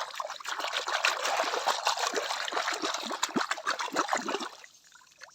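Water trickling and splattering over plastic toy animals as they are washed, with many small splashes; it stops about four and a half seconds in.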